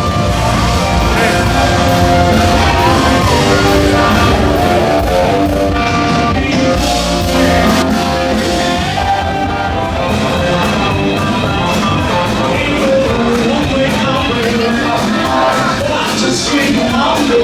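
Loud live rock music with a singer, guitar and drums.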